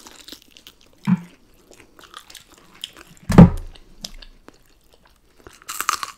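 Close-miked eating: chewing and small wet mouth clicks from honey walnut shrimp eaten by hand. There is a low thump about three and a half seconds in, and a crisp crunch near the end as a fresh green chili pepper is bitten into.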